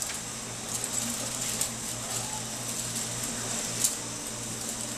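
Room tone: a steady low electrical-sounding hum under a high hiss, with a few faint clicks, about three of them.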